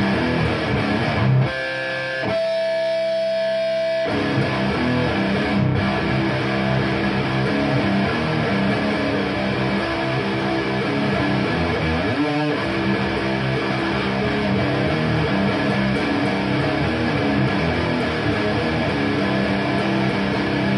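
Electric guitar with DiMarzio Fred pickups played through a Framus Cobra 100-watt tube head and a Marshall MF400A cabinet with Celestion G12K-100 speakers: dense, driven riffing, broken about two seconds in by a couple of seconds of sustained notes before the riffing resumes.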